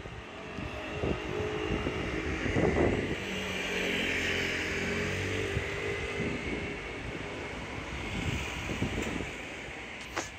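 An engine drone swells over a few seconds and slowly fades as it passes, with a sharp click near the end.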